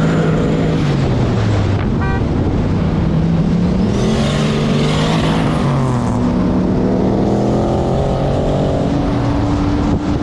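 Turbocharged LS1 V8 running at full throttle on a pull, its pitch climbing through each gear and dropping at the shifts, with a high whistle rising over it early and again about four seconds in.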